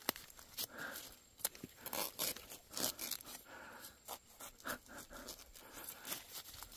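Faint, irregular crackling and rustling of leaves, twigs and plant stems as someone moves through forest undergrowth and handles the vegetation.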